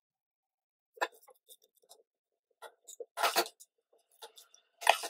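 Steel ladle clinking and scraping against a stainless steel pot as parboiled basmati rice is scooped out to drain. A few sharp metallic knocks, the loudest a little past the middle and again near the end, with small ticks between.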